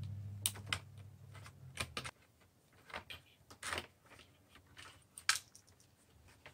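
Faint, irregular clicks and taps of hands handling the clock radio's plastic case, the cord and the small cord-retainer part and its screw. A low steady hum runs under the first two seconds and cuts off abruptly.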